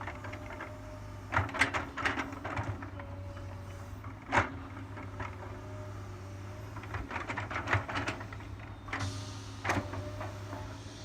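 Backhoe's diesel engine running steadily, with a faint whine that comes and goes and a series of sharp knocks and clanks as it works, the loudest about four seconds in.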